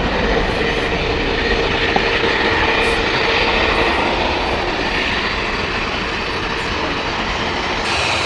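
Jet engines of taxiing aircraft at low power, a British Airways Airbus A319 and a small business jet: a steady whine over a rushing rumble.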